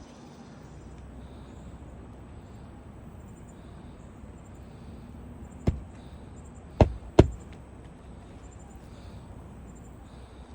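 Three sharp knocks of roofing nails being driven as a lifted asphalt shingle is fastened back down: one, then a pause of about a second, then two quickly together.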